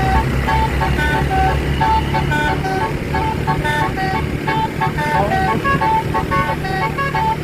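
Bus telolet horn, a multi-tone horn playing a quick tune of short notes that jump between a few pitches, over a low engine rumble.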